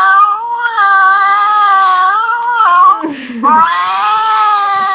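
A goat screaming in two long, human-like wails with a brief break between them.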